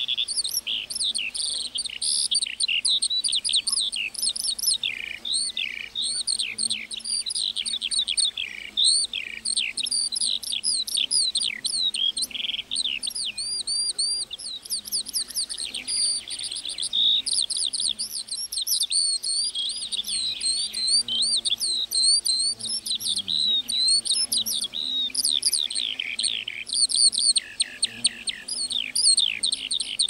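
A lark singing a long, unbroken song: a rapid stream of high chirps, trills and short downward-sweeping notes with no pause.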